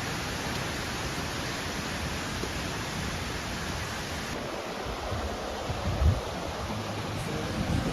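Steady rush of a waterfall, an even hiss across the whole range; the higher part dims a little about four seconds in, and a few low thumps sound about six seconds in.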